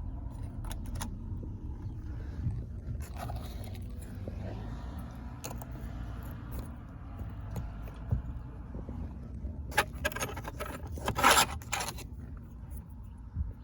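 Small metal sunroof shims and hardware being handled, clinking and scraping, with a louder run of rattling clinks near the end, over a steady low rumble.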